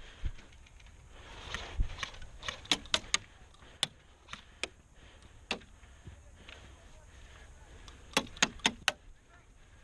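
Airsoft guns firing sharp single shots at irregular intervals, with a quick string of about four shots near the end.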